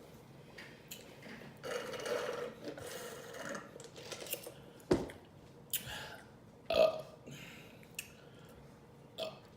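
A woman burping several times after drinking fizzy Sprite: one longer burp early on, then a string of short, sharp ones.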